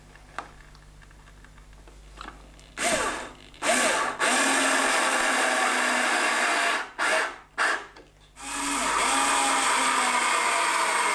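Power drill driving screws. It is quiet at first, then about three seconds in a short burst is followed by a run of about three seconds, two quick blips, and another long run near the end.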